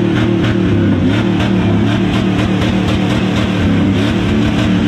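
Pickup truck engine running steadily up close, with a regular ticking about five times a second.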